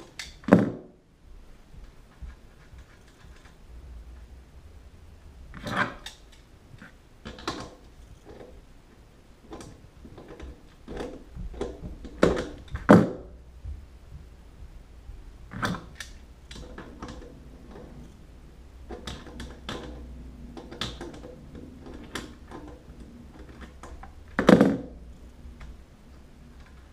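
Metal hand tools, a wrench and channel-lock pliers, working the nuts off a toilet's floor bolts: light handling noise broken by a few sharp metallic clanks and knocks. The loudest come about half a second in, around the middle, and near the end.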